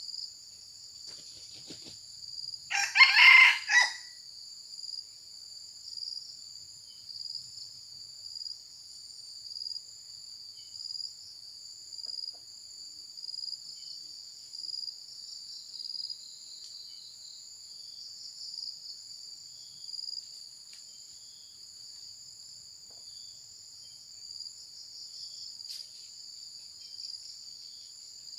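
A young cockerel crows once, a short call of about a second with three rising and falling pushes, about three seconds in. Insects chirr steadily and high-pitched, pulsing about once a second.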